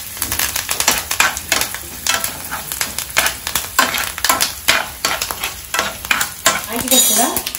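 Spices and curry leaves sizzling in hot oil in a non-stick frying pan, with a steel spoon stirring and scraping against the pan again and again. This is a South Indian tempering of mustard seeds, cumin, chana dal, dried red chillies and curry leaves, fried until the dal turns reddish.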